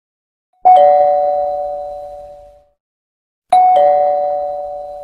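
Two-tone ding-dong doorbell chime sounding twice, about three seconds apart. Each time a higher note is struck, then a lower one, and both ring out and fade over about two seconds.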